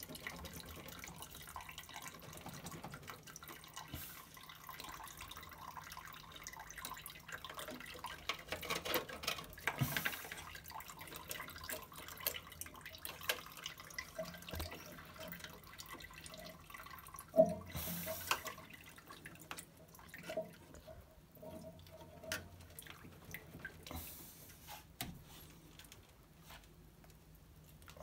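Water dripping irregularly out of a washing machine's drained tub, where the heating element has been pulled, with scattered small clicks and a sharper knock about seventeen seconds in.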